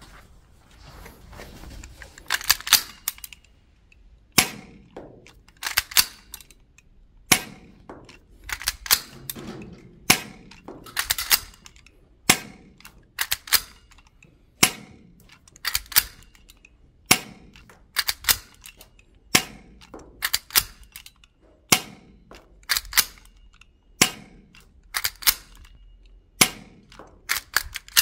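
Toystar M45A1 airsoft pistol with a full-metal kit firing BBs, one sharp shot about every second or so, with lighter metallic clacks between the shots.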